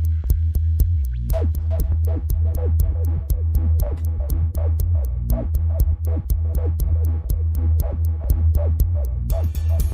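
Electronic dance music with a drum-machine beat and heavy, booming bass, played loud through a Sony Xplod powered subwoofer enclosure. The track fills out about a second in, and a bright, dense layer joins near the end.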